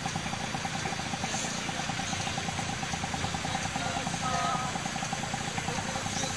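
Truck engine idling: a steady low rumble with an even, fast pulsing buzz over it.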